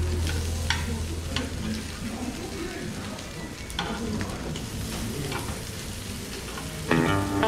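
Pork belly sizzling as it roasts, with scattered sharp pops of spitting fat. Plucked guitar music comes in near the end.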